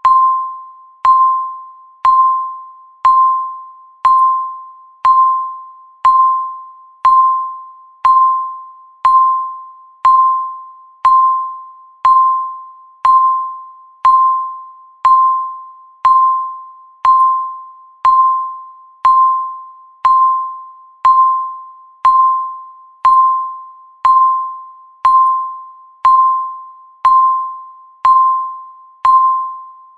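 Countdown timer tick: a short electronic ding at one mid pitch, once every second with even spacing, each one fading quickly.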